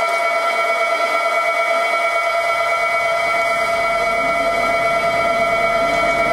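A steady electrical whine of several held tones from a vintage electric railcar standing at a platform, with a low rumble joining about two seconds in.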